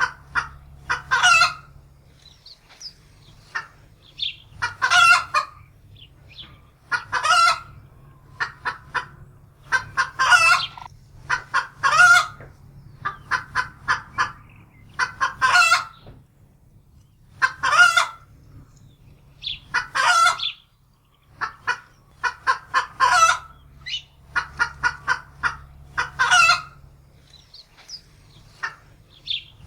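Domestic hen cackling in alarm, frightened by a wildcat: runs of quick clucks, each ending in a long, loud squawk, repeating every two to three seconds.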